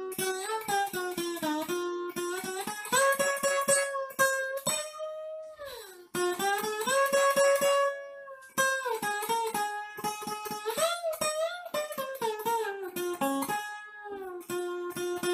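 Acoustic guitar played flat on the lap, slide style, playing a solo melody of plucked notes that glide smoothly from pitch to pitch, with a brief pause about six seconds in.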